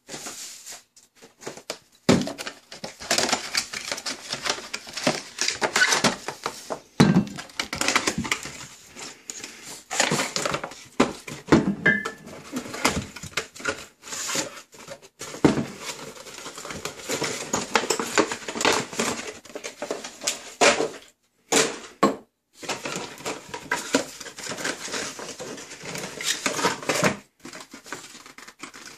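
Cardboard gift boxes being pulled open and handled: irregular rustling, tearing and scraping of card, with knocks and clinks of glass bottles set down on a hard counter.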